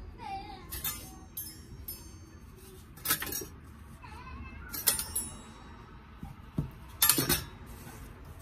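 Several sharp clinks of kitchenware, glass or metal, each with a brief high ring; the loudest come about three, five and seven seconds in. Faint wavering squeaks sound between them near the start and about four seconds in.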